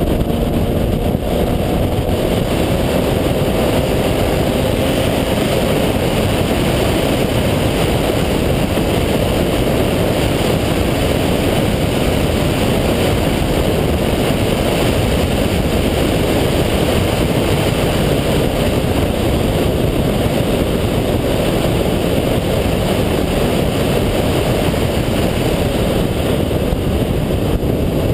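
Single-turbo Mazda RX-7's rotary engine running hard at track speed: a loud, steady, dense drone that holds without a break.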